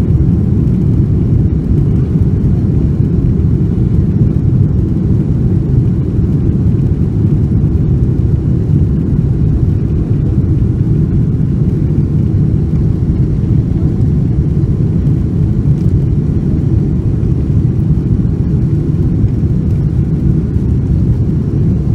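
Steady low rumble of cabin noise inside a Boeing 747-400 airliner, the even drone of engines and airflow heard from an economy seat.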